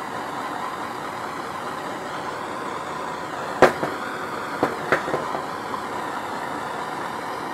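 Handheld gas torch burning with a steady hiss while its flame lightly warms a tube on the engine block. A few sharp knocks come through, the loudest about three and a half seconds in and a couple more around five seconds.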